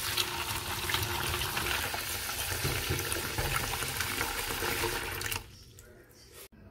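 Tap water running into a plastic colander of dried black beans in a stainless steel sink while a hand swishes the beans. The water stops about five seconds in.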